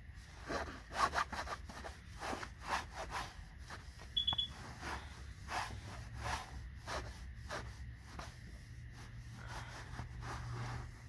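A rag rubbing over a clutch or flywheel part in repeated, uneven wiping strokes, wiping it down to leave it free of grease. A short high double beep comes about four seconds in.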